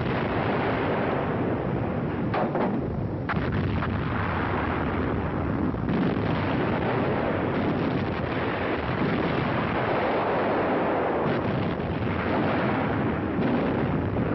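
Artillery fire and shell explosions: a continuous rumble of gunfire with several sharper reports, about four in all.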